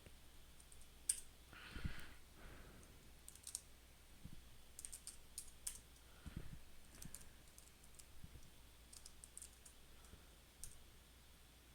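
Faint, scattered keystrokes on a computer keyboard, with a few soft thumps.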